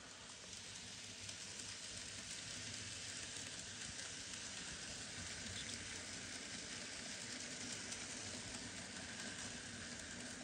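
Model train running on the track: a faint, steady hiss of the locomotive's wheels and small electric motor as it hauls a line of wagons.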